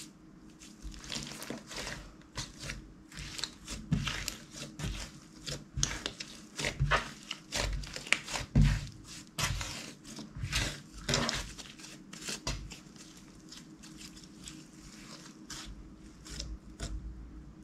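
Hands kneading, stretching and folding a mass of mixed clear slime, giving irregular crackles and pops. They come thick and fast for most of the stretch and thin out over the last few seconds.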